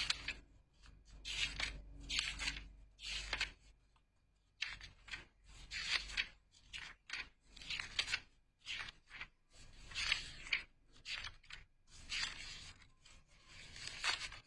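Irregular rustling and rubbing close to the microphone, in short scraping bursts about once or twice a second with a brief pause about four seconds in: handling noise.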